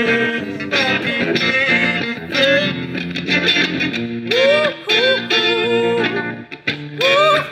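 Electric guitar played through a combo amplifier: an instrumental stretch of a song, with notes bending upward in pitch several times in the second half.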